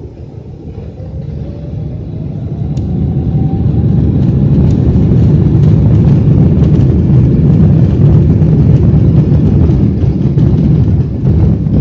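Boeing 777's GE90 engines spooling up to takeoff thrust, heard from inside the cabin: a faint whine rises in pitch over the first few seconds as the low rumble swells, then holds steady and loud through the takeoff roll, with light knocks from the wheels on the runway.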